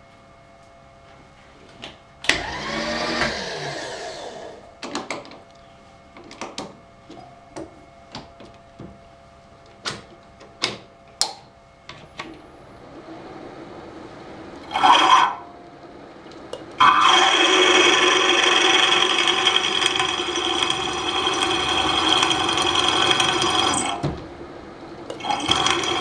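A drilling machine's motor is started briefly and winds down about two seconds in, followed by clicks and knocks of tools being handled. From about seventeen seconds a drill runs steadily under load as it bores out a broken stud in a metal housing at tapping size; it stops about a second before the end and then starts again.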